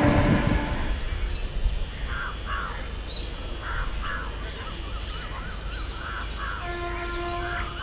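Crows cawing in a quick series over a low rumble, after train noise fades out in the first second. Near the end a distant electric locomotive horn sounds briefly as a steady tone.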